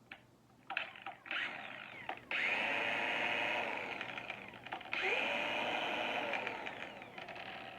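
Porter-Cable PCC761 20V cordless angle grinder running with no load. A few short blips on the trigger are followed by two runs of a couple of seconds each, the whine rising as it spins up; the second run fades as it winds down. The owner is pretty sure its motor is not brushless.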